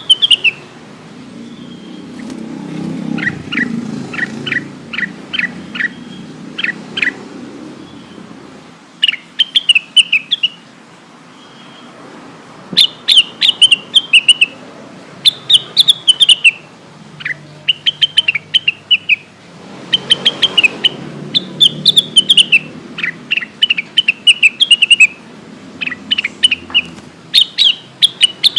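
Cucak wilis (blue-winged leafbird) singing: bursts of quick, sharp, down-slurred whistled chirps repeated in short phrases every second or two. About two seconds in there is a slower run of about a dozen separate falling notes before the fast phrases resume.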